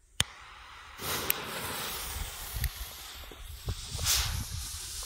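A lighter clicks, then about a second later the fuse of an orange pyrotechnic smoke flare catches and hisses steadily as it spits sparks. The hiss swells near the end as the flare gets going.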